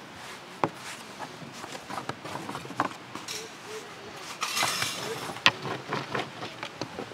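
Kitchen work sounds: scattered knocks, taps and clinks of utensils and dishes, with a brief rustling hiss about four and a half seconds in and a sharp knock right after it.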